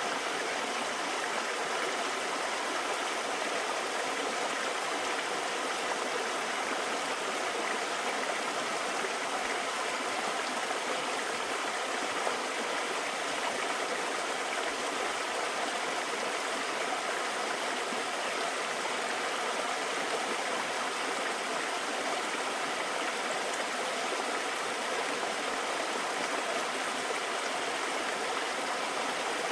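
Mountain stream water rushing and splashing over rocks, a steady unbroken flow.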